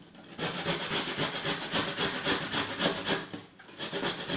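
Fresh ginger root rasped against a fine hand grater in quick, even strokes, with a short pause about three and a half seconds in.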